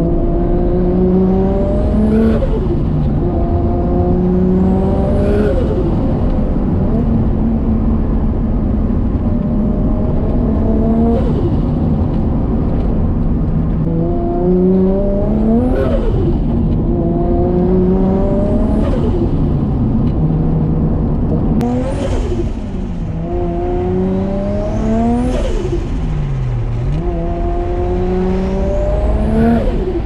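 Nissan Skyline R33's built RB25DET turbocharged straight-six heard from inside the cabin, pulling through the gears: the engine pitch climbs on each pull and drops at each shift, about eight times. A turbo whistle rises sharply at the top of each pull, with turbo flutter as the throttle closes.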